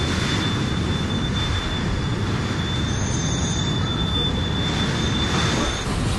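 Strong wind blowing hard across the microphone, a heavy, steady low rumble, with a faint steady high tone through most of it that stops near the end.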